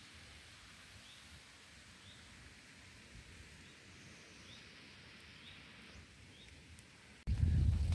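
Quiet riverside ambience with a small bird giving a short high call about once a second. Near the end a sudden loud low rumble starts: the handheld camera is being jostled as someone walks through grass.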